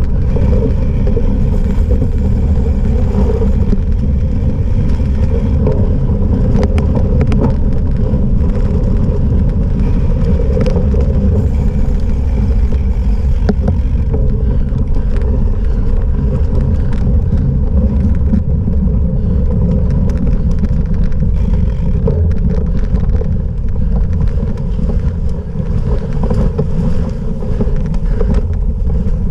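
Wind rushing over a bike-mounted camera's microphone as a cyclocross bike is ridden at race pace, with scattered clicks and knocks from the bike rattling over rough ground.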